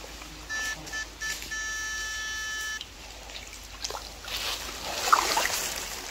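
Electronic beeps at one steady pitch: three short beeps, then one long one lasting over a second. Near the end comes faint splashing of water from wading in a shallow stream.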